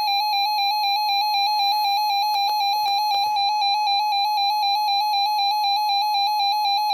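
Weather radio receiver sounding the Weather Radio Canada warning alarm tone: one loud, steady high tone with a slight rapid pulsing, the signal that an alert or test message is about to be read.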